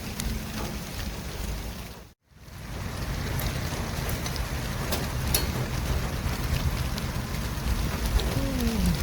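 City street traffic ambience: a steady wash of traffic noise over a low engine rumble, with scattered light clicks. It dips briefly to silence about two seconds in and comes back, and a falling tone sounds near the end.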